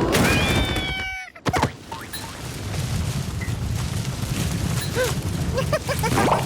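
Cartoon sound effects: a squeaky, gliding character cry that cuts off suddenly, a sharp hit about a second and a half in, then a steady low rumble with a few small squeaks near the end.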